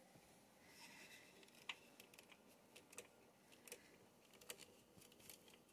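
Near silence, with a few faint, scattered clicks; the clearest comes a little under two seconds in.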